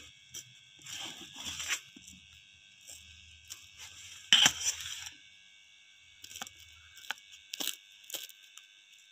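A sharp knife cutting through a cooked pizza, with several separate slicing strokes and short clicks and scrapes of the blade against the plate beneath. The loudest stroke comes about four seconds in.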